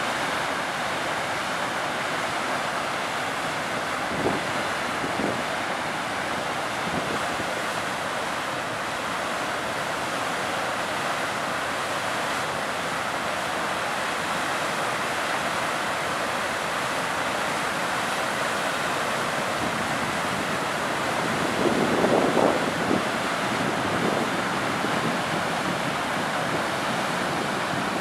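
Tahquamenon Falls, a broad waterfall, giving a steady rush of falling water. A few low bumps of wind on the microphone break through, the largest cluster about three quarters of the way through.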